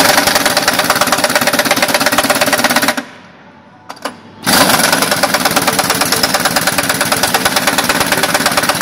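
Pneumatic impact wrench hammering as it tightens bolts during a locomotive wheelset change, the air supply reckoned too weak. It runs in rapid even impacts for about three seconds, stops, gives two short blips, then hammers again for several seconds from about halfway.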